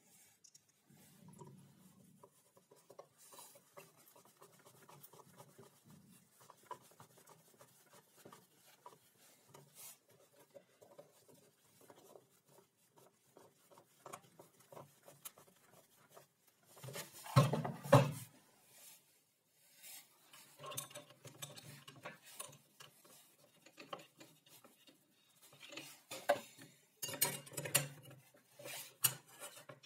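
Small hand-work noises: bolts and washers clinking and rubbing against a plywood board as they are fitted, with a louder clatter of metal parts a little past halfway and another run of clicks near the end.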